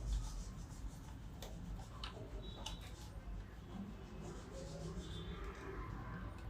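Handling noise from fitting a laptop's optical-bay hard-disk caddy and its bracket: light rubbing and scraping of small plastic and metal parts, with a few sharp clicks in the first three seconds.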